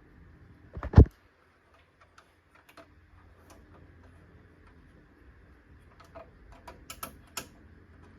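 Sharp clicks of oscilloscope front-panel knobs and rotary switches being turned, with one louder knock about a second in and a quick run of clicks near the end, over a faint low hum.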